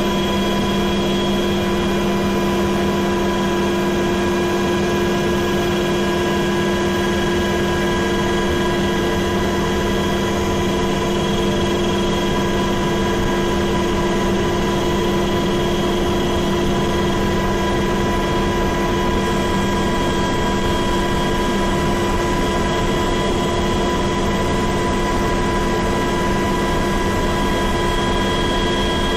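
Helicopter engine and rotors running steadily: a loud, constant drone with several steady whining tones over it.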